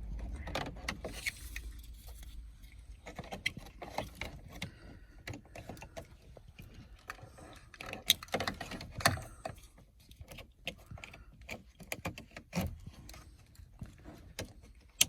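Car radio wiring harness and plastic connectors being handled and plugged together: scattered clicks, taps and rustling of wires, with a few sharper clicks about halfway through and one near the end.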